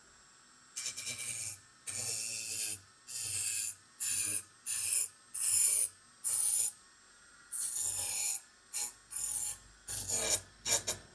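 Small wire wheel on a Dremel rotary tool brushing the serrated edge of a Cutco Double D knife in about a dozen short scratchy passes with brief pauses between them, knocking the sharpening burr back to the other side of the edge.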